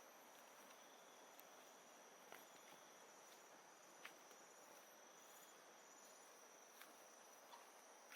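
Faint tropical jungle ambience: insects trilling in a steady high note over a low, even hiss, with a few soft clicks.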